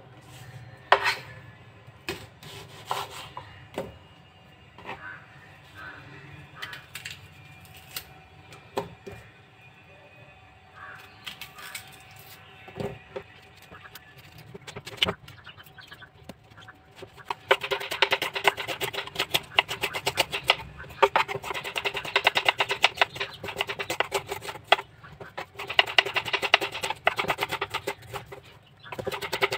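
Kitchen knife working red onions on a wooden cutting board: scattered taps and clicks while the onions are peeled and handled, then, a little past halfway, a fast run of slicing strokes knocking on the board.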